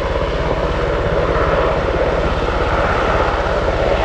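CH-148 Cyclone military helicopter flying past, its twin turboshaft engines running and its rotor blades beating in a fast, even rhythm. It grows slightly louder.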